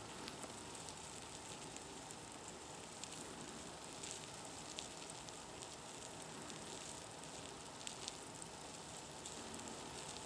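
Faint rustling and crackling of superworm (Zophobas) larvae crawling through wood shavings, with scattered small ticks.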